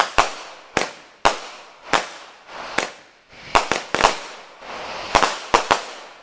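Consumer aerial fireworks bursting overhead: a rapid, irregular series of sharp bangs, about a dozen in all, some in quick pairs, each fading out briefly before the next.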